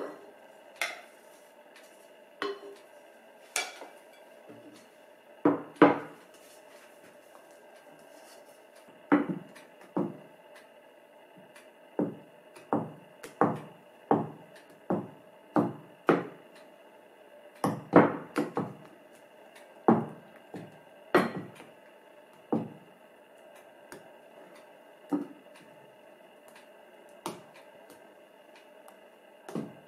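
Wooden spoon knocking and scraping against a glass mixing bowl while folding beaten egg whites into batter: irregular taps, about two dozen, closest together in the middle, over a faint steady hum.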